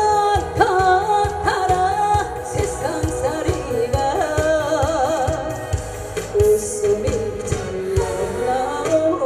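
A woman singing a Korean popular song into a microphone, amplified over a backing track with a steady beat; her sustained notes carry a wide vibrato.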